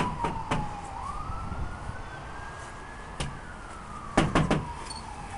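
Knuckles knocking on a door: two knocks just after the start, one a little past halfway, and three louder knocks near the end. Under them an emergency siren wails, its pitch slowly sliding down, up and down again.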